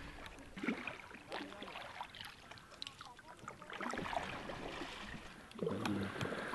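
Canoe paddles dipping and pulling through river water, with soft splashes and knocks at irregular intervals. A brief low vocal sound comes near the end.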